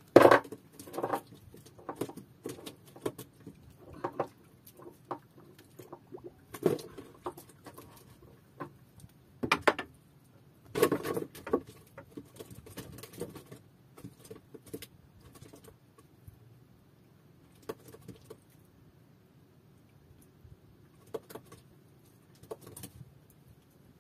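Irregular clicks, taps and knocks of hands working a fishing handline and hook in a small wooden boat, loudest in the first second and around ten to eleven seconds in, then fewer and fainter.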